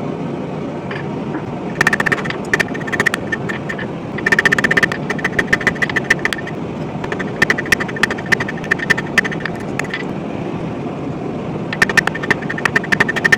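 Hammer blows on hot rebar over a hot cut hardy set in the anvil, cutting the leaf stock, each strike ringing the anvil. The blows come in four runs of quick strikes, the fastest and loudest a few seconds in, over a steady background roar.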